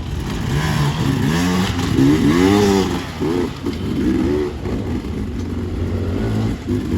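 Off-road dirt bike engines revving in repeated blips, the pitch rising and falling over a steady low idle, loudest about two to three seconds in.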